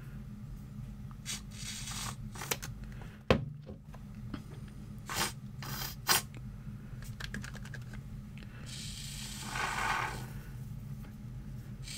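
Can of Great Stuff Gaps & Cracks expanding foam spraying through its straw into a plastic buoy shell, hissing for a couple of seconds near the end. Before it, clicks and knocks of the can and the plastic part being handled, with one sharp knock about three seconds in.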